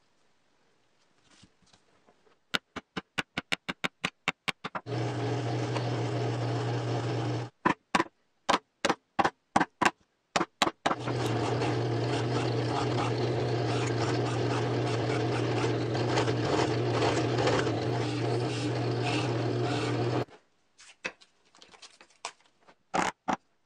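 Drill press running and boring holes into a plywood piece through a glued-on paper template, in two long steady spells with a low motor hum under the cutting noise. Before, between and after them come runs of short sharp clicks and knocks.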